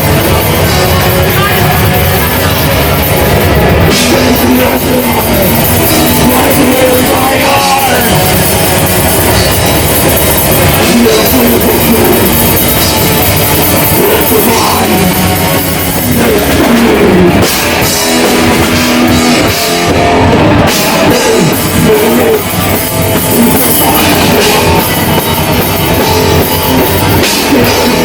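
Heavy metal band playing live: drum kit and distorted guitars, loud and dense without a break.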